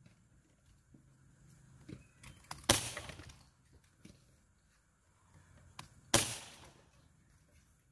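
Daisy 426 CO2 BB pistol firing twice, about three and a half seconds apart: two sharp cracks, each with a short echoing tail.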